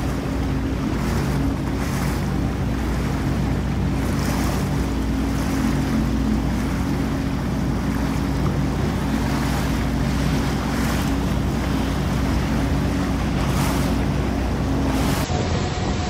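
Jet ski engine running steadily at cruising speed, with the hiss of its spray and wake and wind on the microphone. About a second before the end it cuts to the sound of rushing water.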